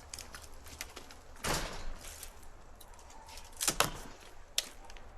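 Scattered knocks and clatter of debris being handled by hand: a short scraping clatter about a second and a half in, two sharp knocks close together near four seconds, then one more sharp knock.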